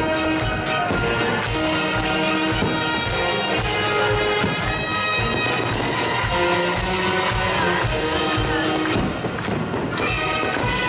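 Military brass band playing an instrumental passage: held wind and brass chords over a steady low drum beat.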